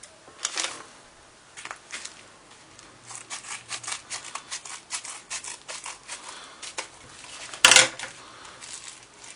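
A postal parcel being opened by hand: a run of short, irregular crackles and rustles of the packaging, with one much louder, sharp rip about three-quarters of the way through.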